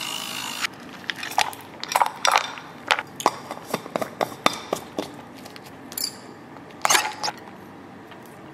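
A handheld battery frother buzzing in a drink in a glass-lined tumbler, switching off under a second in. Then a run of sharp clinks and knocks as ice goes into the glass and the tumbler's plastic lid is pressed on.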